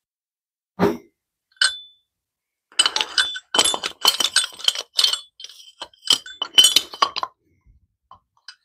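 Metal tools and sockets clinking and clattering on a metal workbench. There is a dull knock about a second in, then a single ringing clank. After that comes a quick run of sharp metallic clinks and rattles lasting about four seconds.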